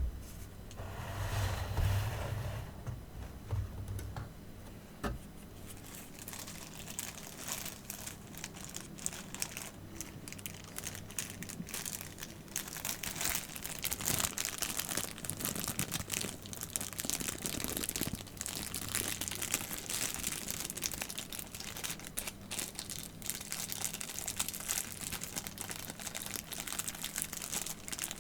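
Packaging crinkling and rustling as it is handled and unwrapped, with many irregular crackles, after a single knock at the very start.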